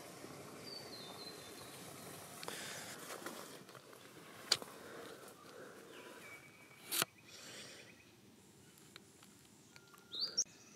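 Faint outdoor ambience with scattered bird chirps, including a quick rising chirp near the end. Two sharp clicks a few seconds apart stand out as the loudest sounds.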